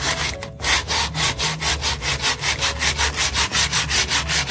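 A sheet of coarse 60-grit sandpaper rubbed by hand over the bare wooden slats of a craft crate, in quick, even back-and-forth strokes, about six a second, smoothing the rough wood.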